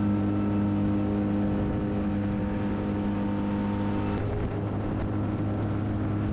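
Mercury EFI FourStroke outboard motor running steadily at cruising speed, driving a small aluminium boat, with water rushing along the hull. About four seconds in the engine tone shifts slightly.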